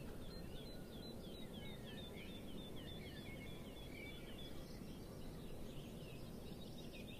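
Faint birdsong: small birds chirping over and over in short, high, down-slurred notes, over a steady low background rumble.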